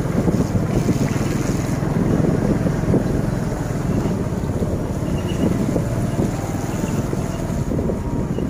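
Wind buffeting the camera microphone while on the move: a steady, dense low rumble with no clear breaks.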